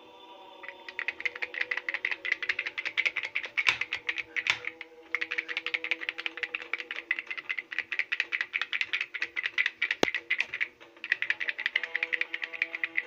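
Rapid rattling clicks, many a second, from a handheld plastic toy being shaken. They come in three long runs, broken briefly about five and eleven seconds in, over faint steady tones.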